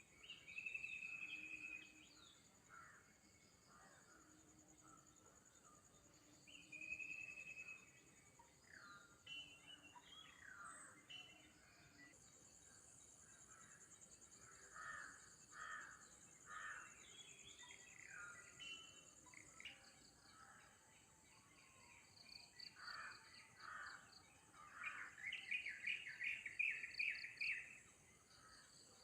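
Several birds calling and chirping: short whistled notes, scattered harsher calls and, near the end, a loud rapid series of chirps. A steady high insect drone runs underneath.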